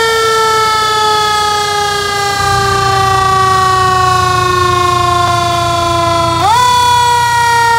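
Fire truck siren holding one long tone that slowly sinks in pitch for about six seconds, then sweeps quickly back up near the end.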